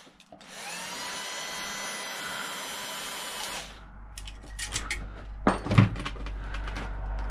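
Cordless drill motor whirring steadily for about three seconds, then cutting off abruptly. Clicks and knocks of metal parts being handled follow, the loudest a little before the end.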